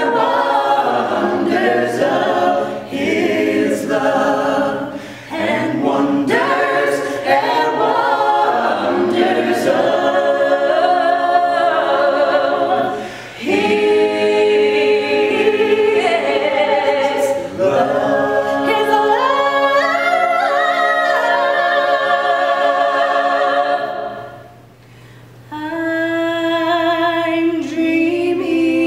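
A cappella choir singing in harmony, phrase by phrase, with short breaks between phrases and a pause of about a second and a half near the end.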